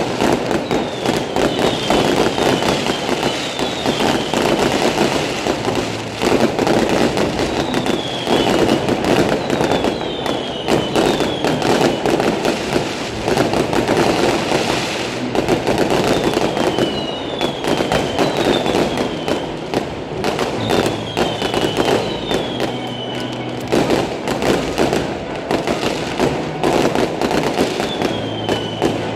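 Fireworks display going off continuously: dense rapid crackling and popping, with short falling whistles every second or two.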